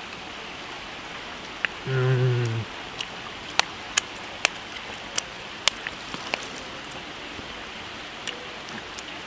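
Steady rush of a flowing river, with a short low "mmm" hum from a man about two seconds in, then a run of sharp, wet smacking clicks as he licks sauce off his fingers.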